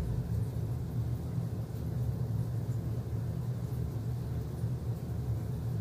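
Steady low hum of room background noise, with a faint hiss above it.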